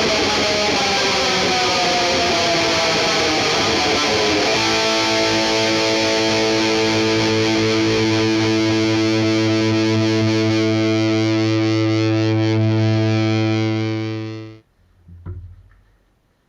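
Distorted electric guitar music. It opens with a falling pitch slide, then holds one ringing chord for about ten seconds before fading out quickly. A couple of faint knocks follow near the end.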